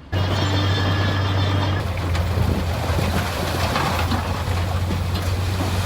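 A truck engine running with a steady low hum and a rough rumble, starting and cutting off abruptly.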